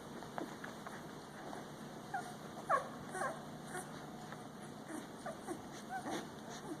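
A litter of 12-day-old puppies squeaking and whimpering: short, falling cries scattered throughout, the loudest a little under three seconds in.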